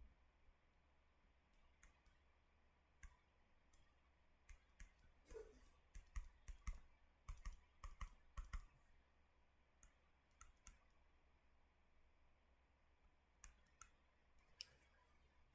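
Faint, scattered clicks and taps over near silence, thickest between about five and nine seconds in, with a few more near the end.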